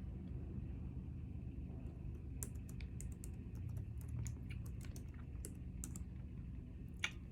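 Scattered light clicks and taps at an uneven pace over a steady low hum, with one sharper click near the end.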